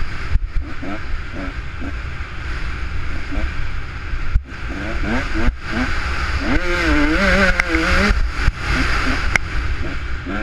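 A 150 cc dirt bike's engine under way on a trail, its pitch rising and falling with the throttle, with the engine note clearest in the second half. Wind and trail rumble on the bike-mounted camera's microphone run underneath, and there are two brief dips in sound around the middle.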